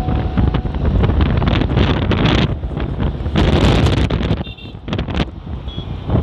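Wind buffeting the microphone on a moving scooter, loud and gusting unevenly, with a short high beep about four and a half seconds in.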